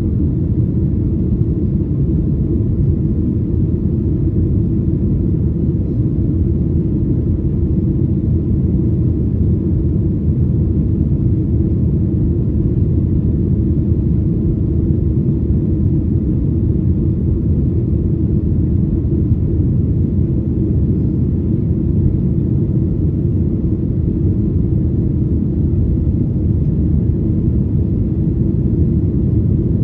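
Steady low rumble of an airliner heard from inside the passenger cabin: engine and airflow noise with no change in pitch or level.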